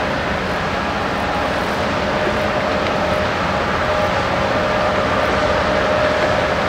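Ship's engine running steadily as the vessel passes: a continuous drone with a held hum on top.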